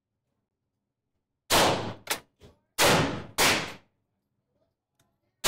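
Gunshots echoing in an indoor shooting range. After a quiet moment come three heavy shots, the last two close together, each followed by a short echo, with two briefer, sharper cracks among them.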